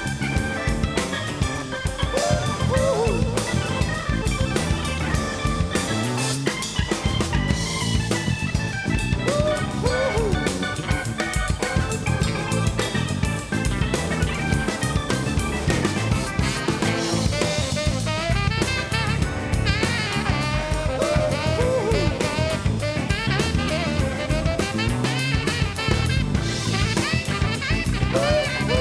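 Live rock band playing an instrumental break: a drum kit keeps a steady beat under bass and keyboards while a lead line of bending, wavering notes solos over them.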